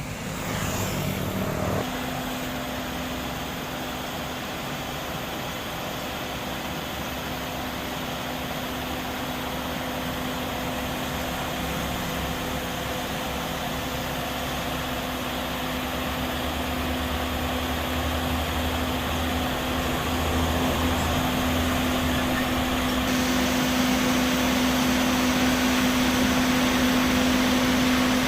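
Sumitomo asphalt paver's diesel engine running steadily with a constant droning tone, slowly growing louder.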